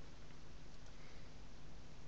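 Room tone: steady hiss with a faint low hum, no distinct sound.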